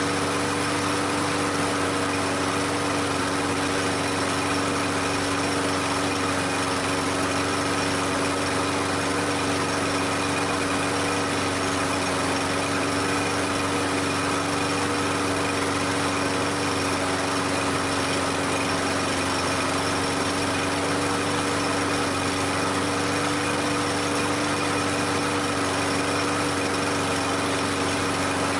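Toro Recycler push mower's 150 cc single-cylinder engine running steadily at a constant speed, with a steady pitched hum.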